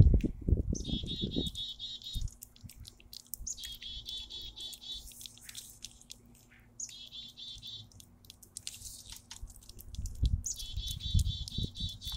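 A songbird sings the same short phrase four times, each a high note followed by a quick trill, over close, quick clicks from a cat licking a lickable treat out of a squeeze tube. A low rumbling noise is heard at the start and again near the end.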